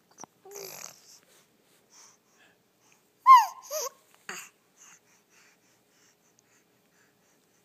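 A small child hiccuping: sharp little hiccups with breathy breathing between them. About three seconds in comes a loud, short, high vocal squeak falling in pitch, followed by a smaller one.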